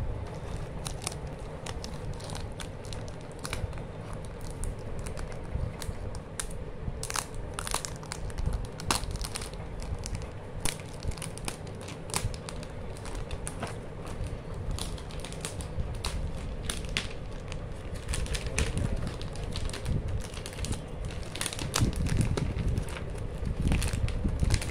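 Clear plastic shrink-wrap crinkling as hands peel it off a cardboard gift box, in many short, irregular crackles.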